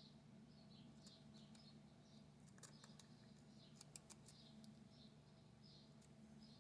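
Near silence: a faint steady low hum, with soft high chirps and a few light clicks about three to four seconds in.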